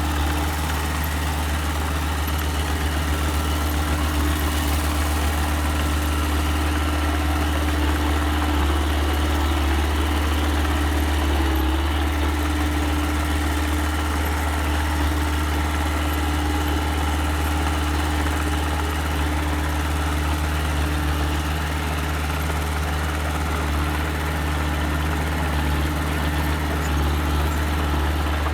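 Diesel engine of a small earthmoving machine running steadily at low revs, an even low hum with no revving.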